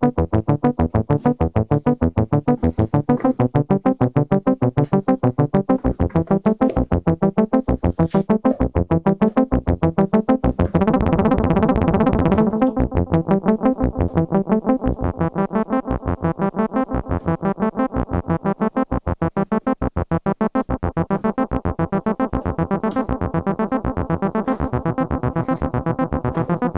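Donner B1 analog bass synthesizer, a Roland TB-303 clone, playing a fast repeating arpeggiated sawtooth bass line with saturation, accent and delay switched on. The knobs are being turned as it plays: the line turns brighter and fuller about eleven seconds in and softer around twenty seconds in.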